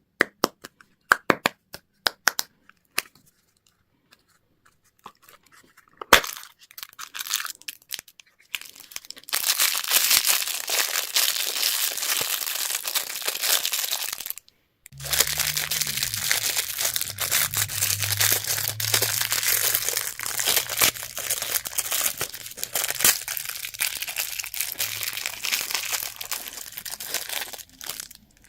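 Plastic candy wrapper being crinkled and torn open: a run of sharp clicks first, then dense crinkling that goes on for many seconds with a short break about halfway. A low steady hum joins after the break.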